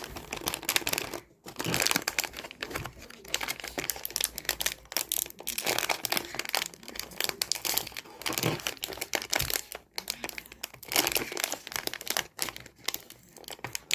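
Crunching while eating: dense, irregular crackling in bursts with a few short pauses.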